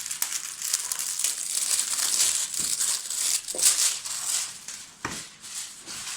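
Packaging crinkling and rustling as it is handled and pulled open by hand: a dense, loud run of crackles that eases off near the end.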